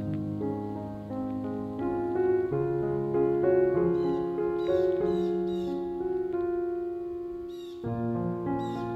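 Piano music, its notes changing in steps; a few short high chirps sound about halfway through and again near the end.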